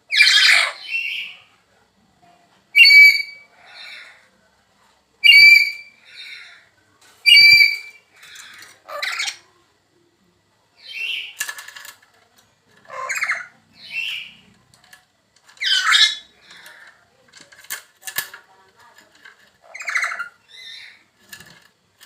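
A bird calling over and over, a loud, short, squawking cry about every two seconds.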